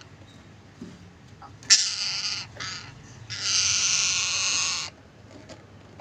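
Caged pet parakeets screeching: a sharp short call, a brief one, then a longer call of about a second and a half.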